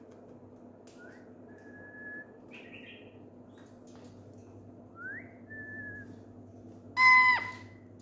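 Blue-fronted Amazon parrot whistling: twice a short rising slide into a held note, with a brief raspy chirp between them, then a loud harsher call near the end that drops in pitch as it stops.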